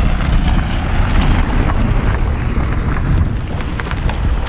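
Wind buffeting the microphone with a steady rumble, as a car drives past on a gravel track, its tyre noise easing after about three seconds.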